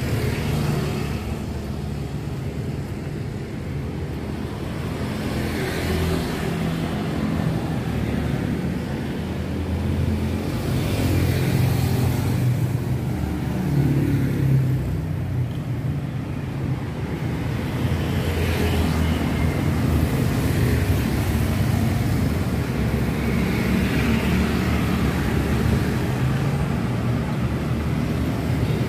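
Street traffic: motor vehicles running close by, a steady low engine hum with passing vehicles swelling and fading every few seconds.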